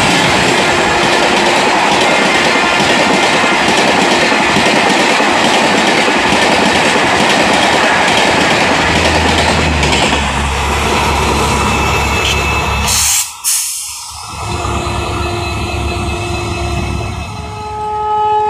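LHB passenger coaches of an express train passing close by at about 125 km/h: a loud, dense rush of wheels on rail and wind. About ten seconds in, the luggage-brake-and-generator car at the rear goes by with a steady low hum from its generator. The sound drops off sharply about thirteen seconds in, leaving a quieter steady background.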